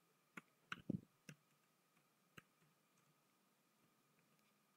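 A few computer keyboard keystrokes as text is typed, about five close together in the first second and a half and one more about two and a half seconds in; otherwise near silence.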